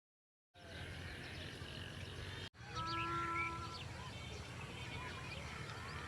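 Outdoor ambience with many small birds chirping, over a low rumble of wind or microphone handling. A single held animal call stands out about three seconds in. The sound starts abruptly half a second in and has a brief cut near the middle.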